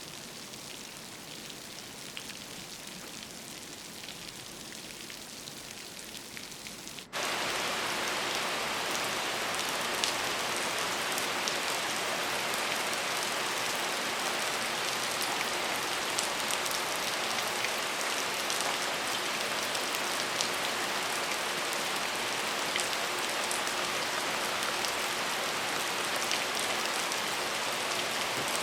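Rain falling steadily on a surface, with scattered drop ticks. About seven seconds in it cuts abruptly to a louder, heavier downpour that holds steady.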